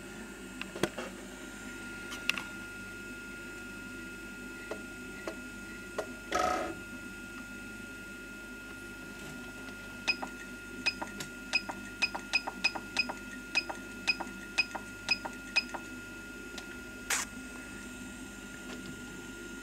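Faint, steady high whine from the powered DJI Phantom 3 camera gimbal holding its camera under the weight of a heavy add-on ND filter. A run of about fifteen quick, sharp ticks, some three a second, comes in the middle.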